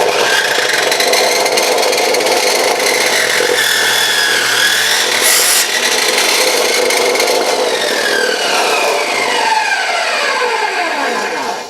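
Chop saw running and cutting through a stuffed teddy bear, its motor whine sagging in pitch partway through the cut, then falling steadily over the last few seconds as the blade spins down.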